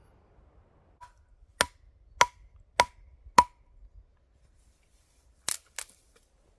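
Machete chopping at branches: four sharp strikes about 0.6 s apart, each with a short ring from the blade, then two quicker strikes near the end.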